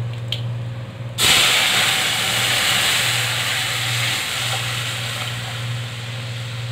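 Yogurt-and-gram-flour kadhi batter hissing and sizzling as it is poured into a hot steel kadhai of oil with cumin, fenugreek and bay leaves. The hiss starts suddenly about a second in and eases slowly as the pan cools under the liquid.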